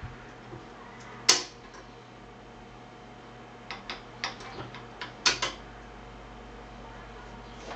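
Philips AG1016/22 record player's automatic tone-arm return at the end of the record: a single sharp click about a second in as the arm lifts off, then a run of lighter clicks and clacks between about four and five and a half seconds as the arm swings back and settles on its rest, over a low steady hum.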